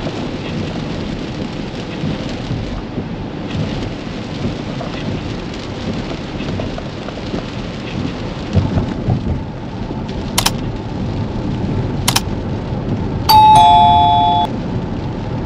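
Steady hiss and rumble of rain and wet road heard inside a Tesla Model X cabin on the highway. Near the end come two sharp clicks and then a loud two-note chime, high then lower: the click and bell sound effects of a like-and-subscribe pop-up.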